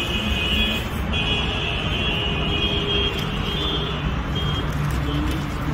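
Steady road traffic noise with a high, steady whine over it that drops out briefly about a second in and fades out after about four seconds.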